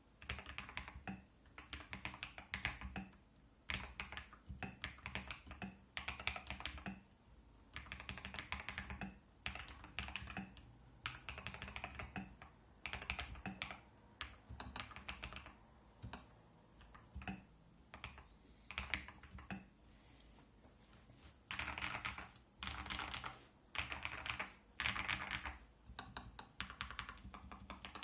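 Typing on a TM680 mechanical keyboard with Akko CS Lavender Purple switches: quick runs of key clacks in bursts of a second or two, broken by short pauses, one longer pause about two-thirds of the way through.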